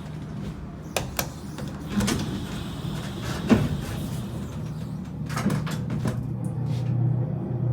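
Elevator doors sliding, with several sharp clicks and knocks over a steady low hum.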